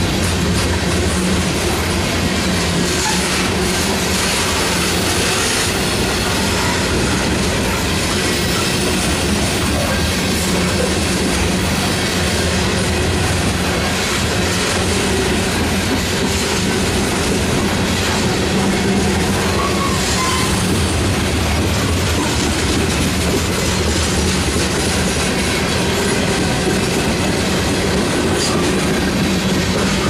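A freight train of covered hopper cars rolling past: a steady rumble and rattle of steel wheels on rail and car bodies.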